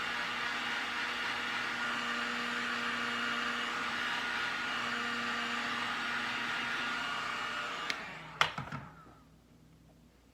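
Electric heat gun running steadily to shrink heat-shrink tubing over a repaired wire, a motor whine over a rush of air. About eight seconds in it is switched off with a click and winds down in a falling whine, with a sharp knock as it is set down.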